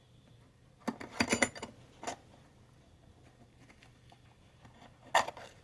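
Hand tools being handled and set down, with metal clinking and rattling: a quick cluster of clicks about a second in, a single click a moment later, and another short clatter near the end.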